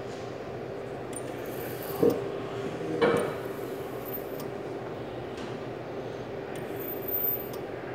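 Handheld plastic welding tool running against a plastic tank with a steady hum, and two short knocks about two and three seconds in.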